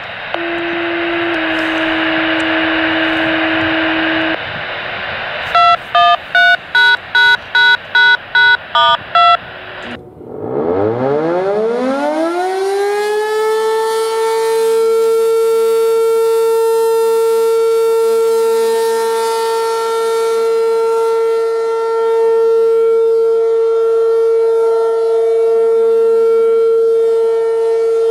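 After some radio hiss, a string of about nine touch-tone beeps plays, the kind of code that sets off a warning siren. Then an ACA P-15 rotating electromechanical warning siren winds up from a low growl to one steady high tone, swelling and easing a little as its horn turns.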